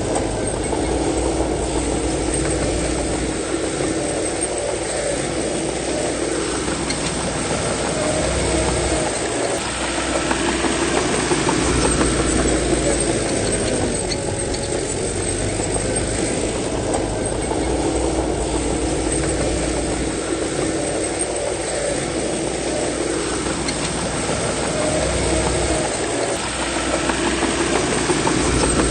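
A bulldozer's diesel engine working, its note dropping under load and rising again in cycles several seconds apart as it pushes soil.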